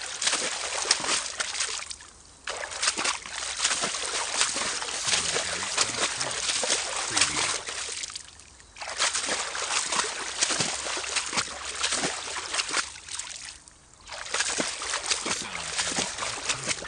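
Footsteps through water: a person walking, each step splashing and sloshing in a dense, uneven run, with three short pauses in the walking.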